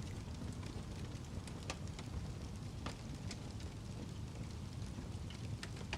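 Wood fire crackling in a fireplace: a steady low rumble of flames with scattered sharp pops and snaps.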